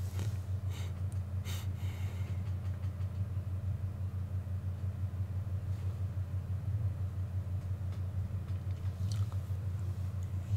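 Shop air compressor running with a steady, fast-pulsing low hum, supplying air to the spray gun used for the headliner glue.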